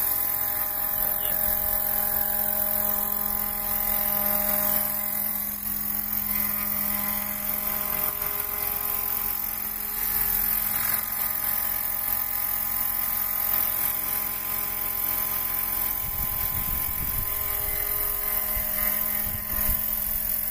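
Roban 800-size Airwolf scale electric RC helicopter in flight: a steady whine from the electric drive and main rotor. A low rumble comes in for a few seconds near the end.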